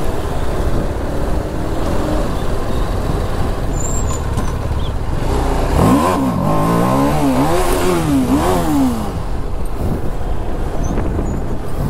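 Motorcycle riding on the road: steady wind and engine rumble, with an engine revving up and dropping back several times about halfway through.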